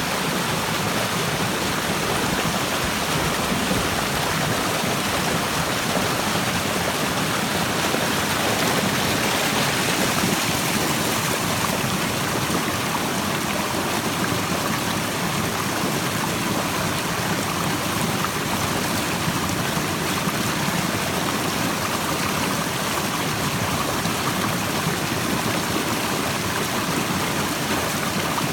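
Steady rush of a stream's running water, swelling slightly about a third of the way through.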